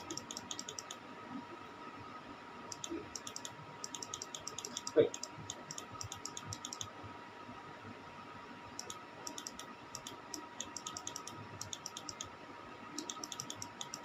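Computer mouse clicking in quick runs of small ticks as a list is scrolled, over a faint steady electrical hum.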